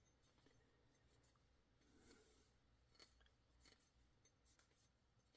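Near silence: faint rubbing of an alcohol prep pad wiping down a disassembled folding knife part, swelling slightly about two seconds in, with a few small ticks.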